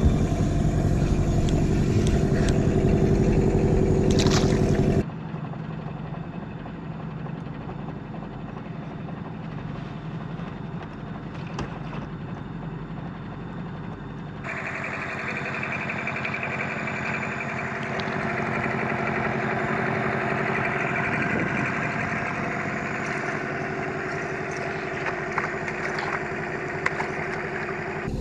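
Boat engine running steadily. It drops sharply to a quieter steady noise about five seconds in, and rises again about halfway through.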